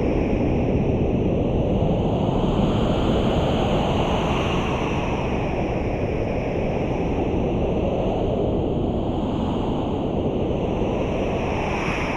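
Wind: a steady rushing noise that slowly swells and ebbs every few seconds.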